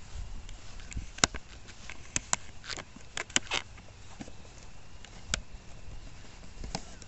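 Footsteps and rustling through dry leaves and brush, with scattered sharp clicks and cracks; the loudest crack comes about a second in.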